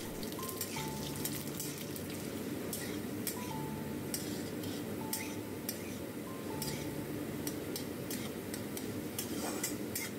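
Cubed potato frying in hot mustard oil in a metal kadai, a steady sizzle under the repeated scrape and clink of a metal spatula against the pan as it is stirred.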